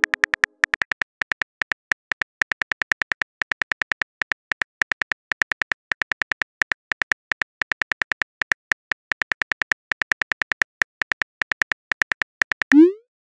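Keyboard typing sound effect of a phone messaging app: a steady run of short clicks, several a second, one per letter as a message is typed. Near the end a short rising swoosh sounds as the message is sent.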